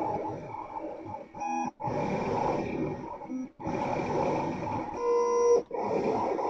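STM Robotics Custom 61 vinyl cutter plotter cutting stickers: its motors drive the blade carriage and sheet in spells of whirring movement, stopping briefly twice between moves. Short pitched whines come about a second and a half in and again about five seconds in.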